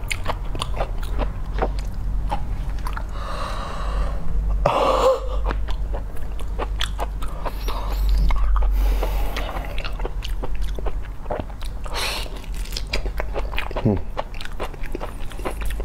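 Close-miked chewing of raw spiny lobster meat, with many small mouth clicks and smacks throughout. A couple of longer breathy, hissing sounds come about four seconds in and again about twelve seconds in.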